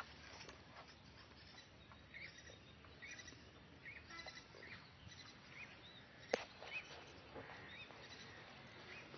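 Faint bird chirping: short, rising-and-falling calls repeated about once a second. One sharp click, the loudest sound, comes about two-thirds of the way through.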